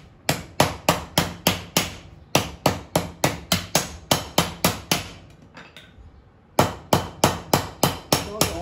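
Rapid hammer blows on a sheet-metal ice cream cone mould shaped over a steel rod on a wooden block, about four strikes a second. There is a short break about two seconds in and a longer lull around five to six and a half seconds in, then the blows resume.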